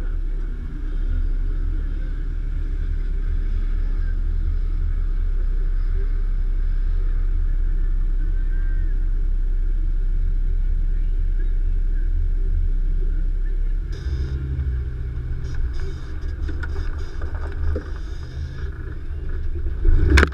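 2015 Nissan Xterra Pro-4X driving off-road, its V6 engine running with a low, steady rumble. About two-thirds of the way through the sound changes and grows busier, with scattered knocks. One sharp, loud knock comes at the very end.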